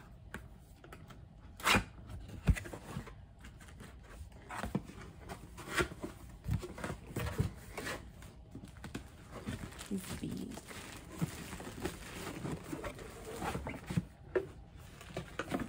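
Cardboard product box being pried and torn open by hand: irregular scraping, rustling and tearing of paperboard, with a couple of sharp snaps about two seconds in.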